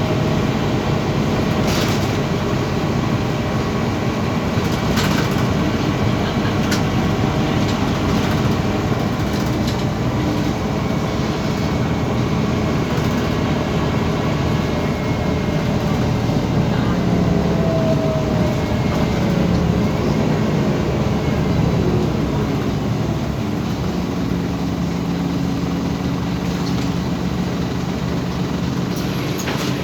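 Scania OmniCity city bus on the move: a steady engine and road rumble with a few sharp clicks and rattles early on. Past the middle the engine note slides down in pitch.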